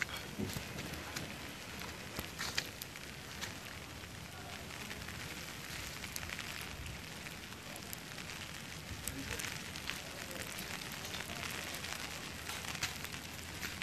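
Heavy wet snow falling and striking surfaces: a steady hiss full of small scattered ticks.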